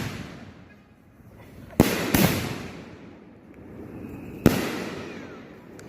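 Aerial firework shells from a board of 2- and 3-inch mortar tubes (peony shells) going off. The tail of one bang fades at the start, then come three sharp booms, each trailing off in a long echo: two in quick succession about two seconds in and a third a couple of seconds later.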